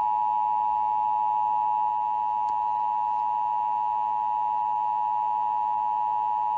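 Emergency Alert System attention signal: a steady two-tone alarm held without a break. It announces that an emergency alert message follows.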